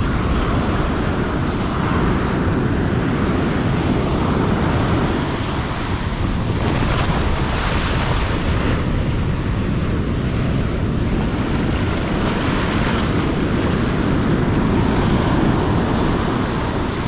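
Ocean surf breaking on the beach, with wind buffeting the microphone. The sea is rough and strong.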